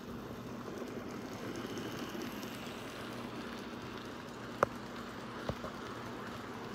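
Model trains running on the track: a steady whir of electric motors and wheels on rail, with a faint constant hum. Two short clicks come about four and a half seconds in and a second later.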